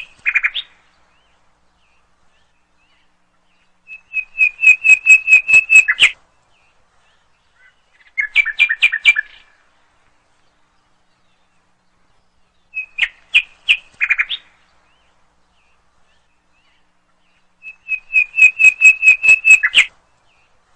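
Birdsong: bursts of quick, high chirps, some running into a fast trill, a few seconds apart with silence between. The same bursts come back about every 14 seconds, as in a repeating recording.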